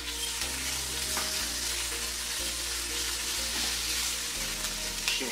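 Diced chicken thigh sizzling in hot oil with chopped onion and garlic in a frying pan, stirred with a spatula; a steady frying hiss.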